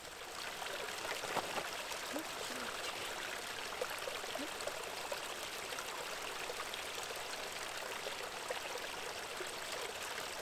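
A small stream of snowmelt water running steadily over the ground: a continuous trickling rush.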